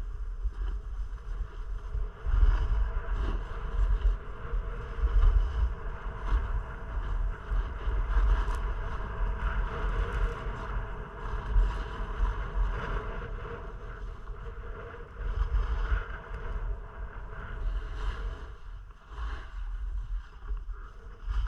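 Skis sliding and scraping on packed snow with a hiss that swells and eases in turns, under a low wind rumble buffeting the action camera's microphone at speed.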